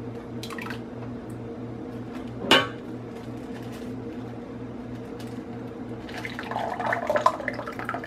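Kitchen utensil sounds: one sharp clack against an enamel pot about two and a half seconds in, then a thick milky coconut mixture poured from a plastic measuring cup into a plastic bag, splashing and rustling near the end. A steady low hum runs underneath.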